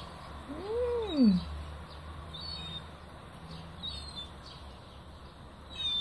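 A young gull gives one drawn-out whining call that rises and then falls in pitch, about a second in; a few faint chirps follow.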